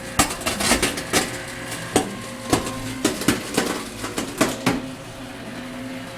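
Broken glass crunching and cracking as a trash compactor crushes it: a quick run of sharp snaps, several a second, like popcorn popping, over a steady hum. The snapping stops about five seconds in.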